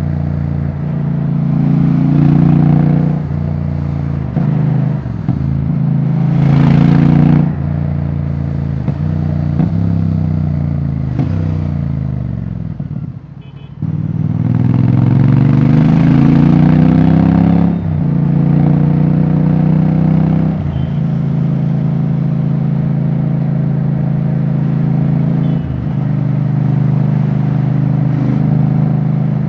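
Royal Enfield Bear 650's 648 cc parallel-twin engine running open with no exhaust silencer. It revs up through the gears, winds down as the bike slows around the middle, climbs hard again, then settles into a steady cruise.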